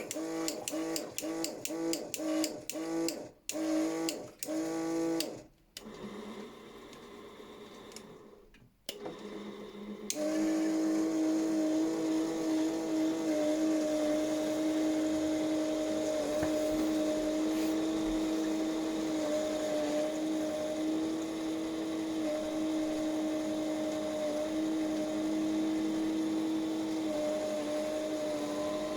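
Miele washing machine spinning: the motor hums in rapid pulses for the first few seconds, drops to a low murmur, then about ten seconds in settles into a steady whine.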